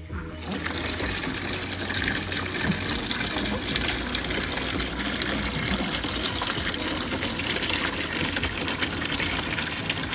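Water gushing steadily into an infant bathtub, starting abruptly and running as a continuous loud stream.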